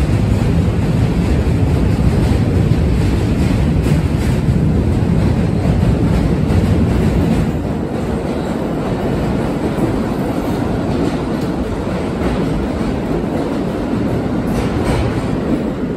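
A New York City subway train running over the Manhattan Bridge's steel tracks: a loud, steady rumble with wheel clatter, easing a little about halfway through.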